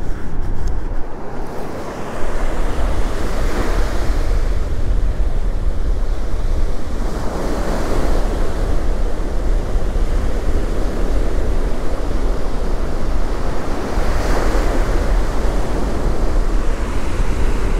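Ocean surf rushing onto a sandy beach, swelling louder each time a wave breaks, with wind buffeting the microphone in a steady low rumble.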